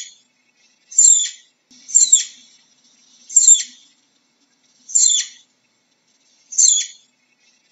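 Flying squirrel giving a series of short, very high-pitched calls, each sweeping sharply down in pitch, about six of them spaced a second or so apart.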